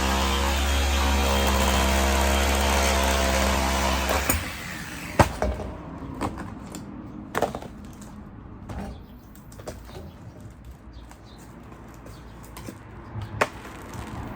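A machine runs with a steady hum and a low drone, then stops abruptly about four seconds in; after that come scattered sharp clicks and knocks.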